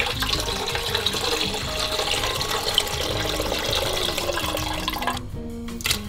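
Water pouring in a stream from a glass jar of tomatoes into an empty enamel pot, splashing steadily. It stops about five seconds in and is followed by a short click.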